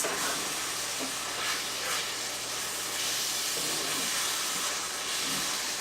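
Meat and tomato sauce sizzling steadily in a hot pan.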